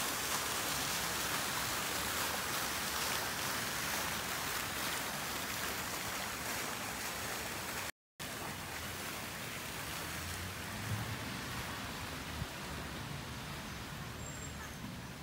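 Fountain water splashing steadily into a pool, which cuts off abruptly about eight seconds in. A quieter outdoor hiss follows, with a faint low rumble.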